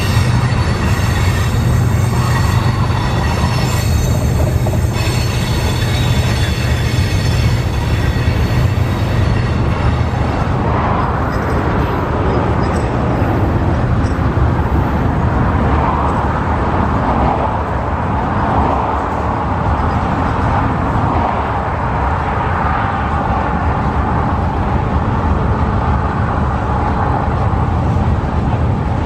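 Freight cars of a CSX manifest train rolling past, a steady low rumble of wheels on rail. High-pitched wheel squeal rides over it for roughly the first ten seconds, then fades.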